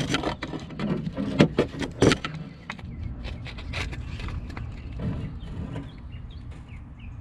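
Irregular clicks and knocks of things being handled and set down, two sharper knocks about a second and a half and two seconds in. Then it goes quieter, with faint bird chirps.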